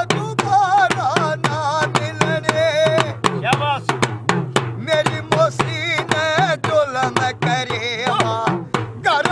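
Men singing a devotional folk bhajan with wavering, ornamented voices, accompanied by two deru, small hourglass drums struck with curved sticks in a quick, steady beat of about three to four strokes a second.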